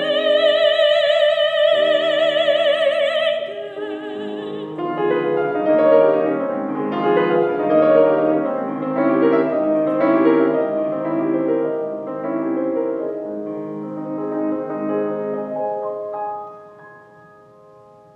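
A soprano holds the final note of a German art song with vibrato over piano for about three and a half seconds. The piano then plays the closing postlude alone, and its last chord dies away near the end.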